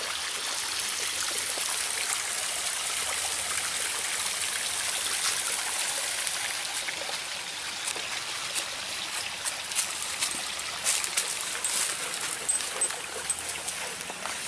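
Shallow woodland stream trickling over rock ledges, a steady hiss. From about halfway on, crackling footsteps and a dog's paws crunching through dry leaf litter and brush cut in.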